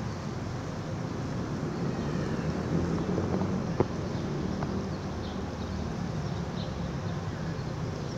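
City street ambience: a steady hum of traffic, with one sharp click a little under four seconds in.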